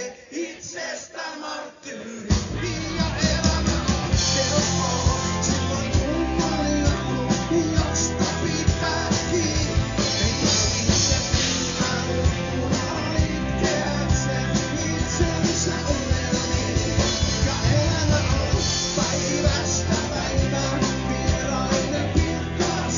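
Live rock band playing amplified electric guitars, bass and drum kit. After a thinner, quieter opening, the full band with drums comes in about two seconds in and keeps a steady driving beat.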